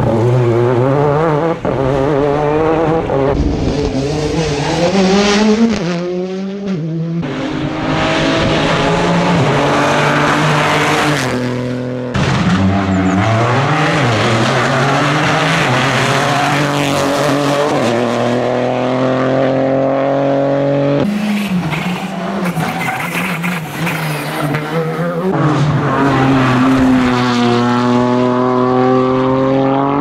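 Small rally cars, including a Renault Clio and a Peugeot 208, passing one after another at full throttle on a stage. Each engine rises in pitch and drops back several times as the driver shifts up through the gears.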